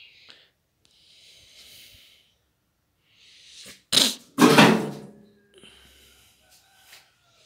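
A person sneezes once, loudly, about four seconds in, after a short intake of breath.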